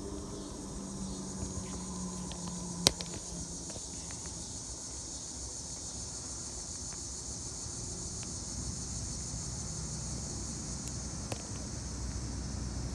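Insects chirping in a steady, high-pitched summer chorus, with a single sharp click about three seconds in.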